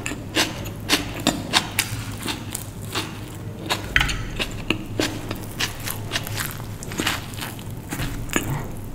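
Close-miked chewing of a veg burger with its bun and potato patty: irregular wet smacks and small clicks, several a second, and a fresh bite near the end.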